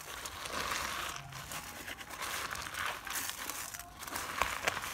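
Hands crushing and twisting dry rotis together with granulated sugar, crumbling the flatbread into churma: an uneven crackly rustle of breaking bread and grinding sugar that comes and goes, with a couple of sharp clicks near the end.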